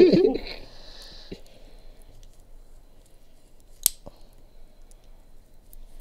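Razor blade cutting the plastic mounting pegs off the back of a chrome car emblem: a short scrape early on, quiet handling, then one sharp snap nearly four seconds in.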